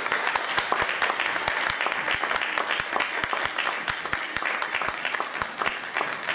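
Audience applauding: dense, steady clapping that carries on throughout.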